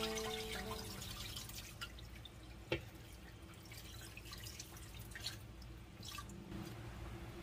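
Water dripping and trickling off washed spinach leaves pressed by hand in a metal bowl, draining into a sink, with scattered small drips and one sharper tap about two and a half seconds in.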